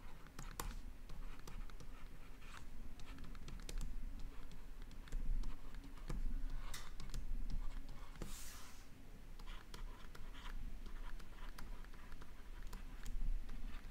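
Plastic stylus tip tapping and scratching on a tablet screen during handwriting: a run of light, irregular clicks with a few short scratches.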